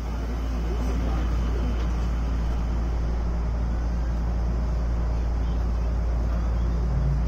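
Steady low hum and rumble inside the cab of a Mizuma Railway 1000 series electric railcar standing at a platform, its equipment running while stopped. Near the end a low tone starts to rise.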